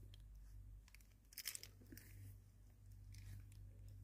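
Faint scraping and crinkling of plastic shrink-wrap as a key slits the seal on a phone box: a few short scrapes about a second and a half in and again near the end, over a low steady hum.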